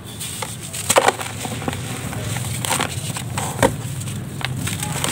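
A dry cake of gritty mud (sand with small pebbles) being crushed by hand: a run of sharp crunches and cracks as it breaks apart, the loudest snaps about a second in and again past three and a half seconds.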